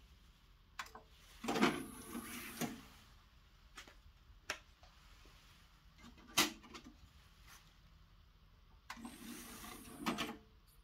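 Rotel RCD-930AX CD player's disc tray sliding out under its motor after a button click, about a second and a half in; a disc set into the tray with a sharp click around six seconds in; then the tray sliding back in, about nine seconds in.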